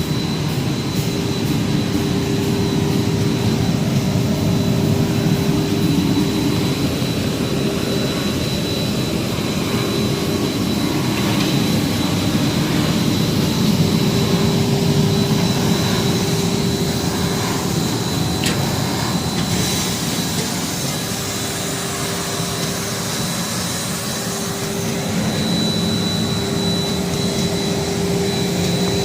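Industrial wood surface sanding machine (upper floating primer sander) running steadily: a continuous loud drone with a steady hum and a thin high whine.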